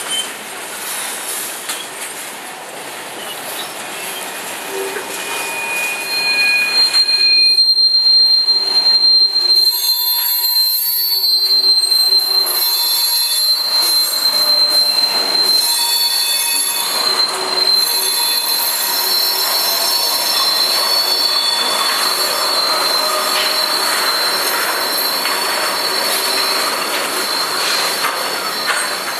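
Freight cars of a passing CSX train rolling by with a constant rumble of wheels on rail. A high, steady wheel squeal sets in about six seconds in and holds to the end.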